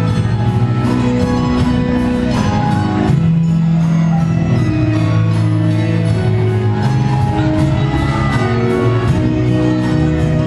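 Loud recorded music with a steady beat, held bass notes and jingling percussion.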